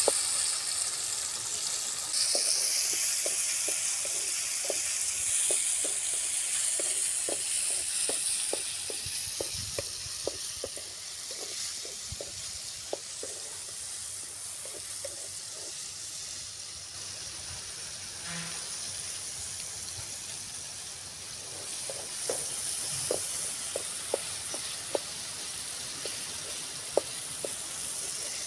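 Shallots, garlic and chopped tomatoes frying in oil in an aluminium kadai, sautéing until the tomatoes soften. A steady sizzle that eases somewhat after about ten seconds, with a string of faint ticks.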